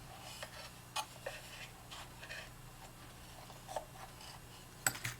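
Faint scratching and light clicks of a screwdriver working the screw that holds a cuckoo clock's voice pipe, with a sharper click near the end.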